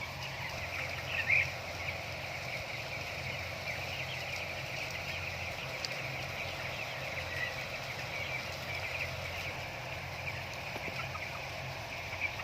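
A flock of broiler chickens peeping and chirping all together in a continuous chatter of many birds, with one louder call about a second in. A steady low hum runs underneath.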